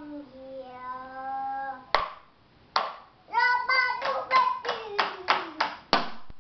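A toddler singing a held note, then a quick run of sharp hits on a makeshift drum, about three a second, with the child's voice singing over them.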